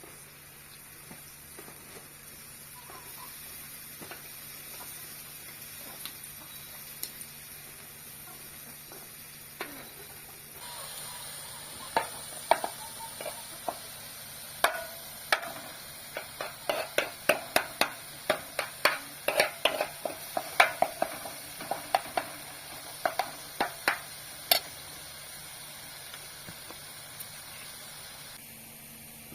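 A utensil clicking and tapping against a pan or dish, a quick irregular run of clinks a few per second through the middle, over a faint steady hiss.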